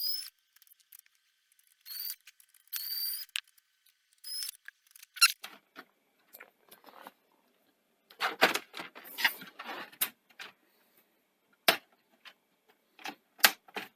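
The front panel of a Sony SL-C6 Betamax video recorder being worked loose and removed: a few short high squeaks in the first half, then bursts of clicks and rattling from about halfway through.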